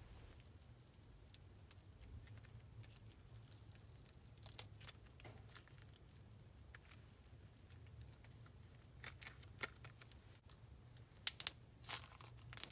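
Thick putty slime being stretched and worked by hand, with faint sticky crackles and small air-bubble pops that grow louder and more frequent in the last few seconds.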